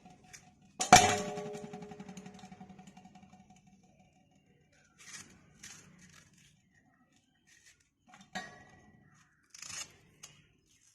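A sharp ringing clink about a second in, fading away over about three seconds, then a few short, soft crisp sounds.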